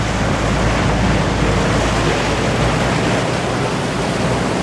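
Water taxi's engine running steadily at speed, a low hum under the constant rush of churning water from its wake, heard from on board at the stern.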